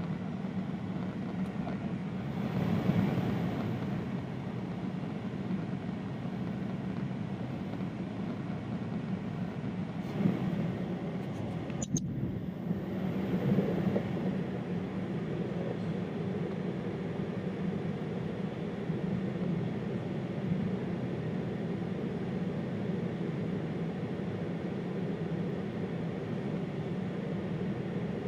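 Airliner cabin noise in a Boeing 767-300ER in flight: a steady rush of jet engines and airflow heard from a seat by the wing. It swells briefly a few seconds in, and a single sharp click comes near the middle.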